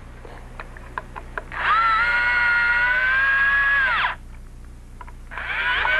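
Electric drill running: light clicks and taps of handling, then a motor whine that climbs in pitch as it spins up, runs steadily for about two and a half seconds and stops, then starts up again near the end.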